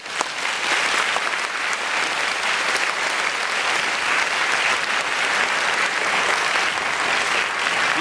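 Audience applauding, a steady even clapping that holds at one level.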